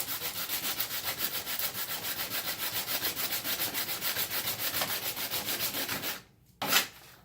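Harmonica mouthpiece slider being hand-sanded on sandpaper in quick, even back-and-forth strokes, about five a second. The sanding stops about six seconds in, followed by a single sharp knock, the loudest sound here.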